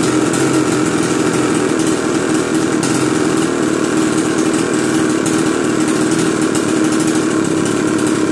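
Petrol 6200 two-stroke chainsaw engine idling steadily at an even pitch, running again after a new piston, ring and cylinder were fitted.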